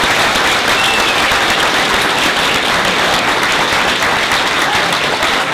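Audience applauding steadily, a dense mass of clapping.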